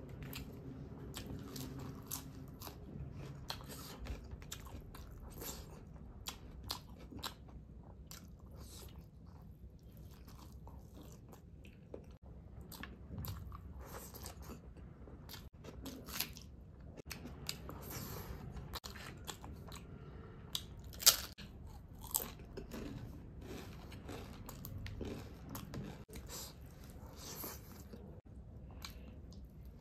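A person eating close to the microphone: chewing and biting food, with many short clicky mouth sounds at irregular intervals and one sharper, louder one about two-thirds of the way through.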